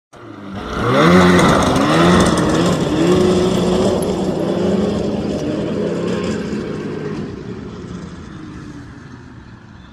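Snowmobile engine revving hard as it pulls away, its pitch rising and falling a few times, then running at a steadier high speed and fading as it moves off into the distance.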